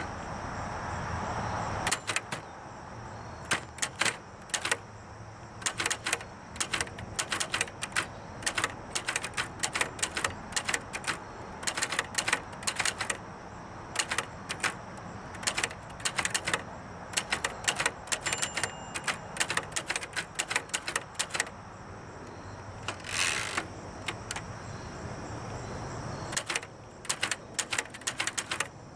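1931 Triumph Klein portable typewriter being typed on: quick, uneven keystrokes of the typebars striking the platen, with a brief scraping sweep about twenty-three seconds in.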